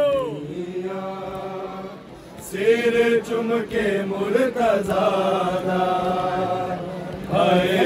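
A voice chanting a noha, a Shia mourning lament, in long drawn-out notes, with a short break about two seconds in.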